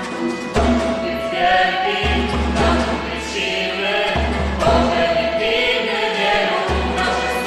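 A group of voices singing a Polish religious song together, with guitar accompaniment and changing low bass notes underneath.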